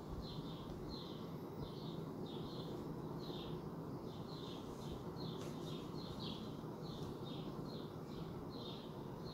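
Repeated short, high chirps from a small animal, two or three a second and slightly falling in pitch, over a steady low hum.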